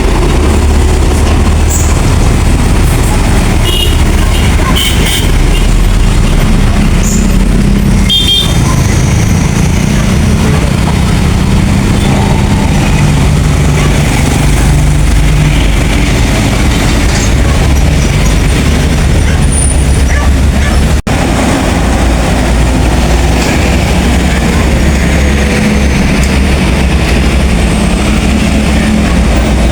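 Heavy diesel buses and road traffic rumbling steadily close by, with a few brief high tones about four to eight seconds in. The sound drops out for an instant about twenty-one seconds in, then carries on.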